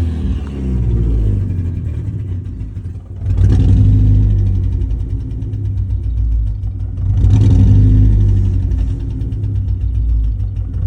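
2015 Ford Mustang EcoBoost's 2.3-litre turbocharged four-cylinder engine running with a misfire. The revs rise in two surges, about three and a half and seven seconds in, with steadier running between them.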